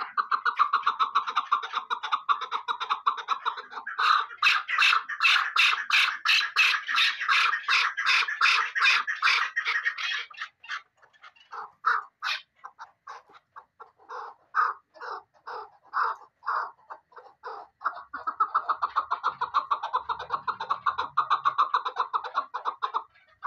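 Chukar partridge calling: a long run of rapid, repeated clucking notes, very fast and dense for the first ten seconds, slowing to separate, spaced notes in the middle, then speeding up again near the end.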